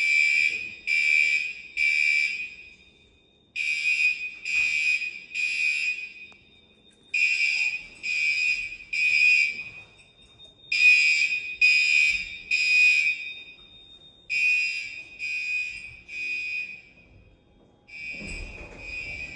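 Fire alarm bell ringing in the temporal-three evacuation pattern: five sets of three rings, each set fading out before the next, with a low rumble near the end.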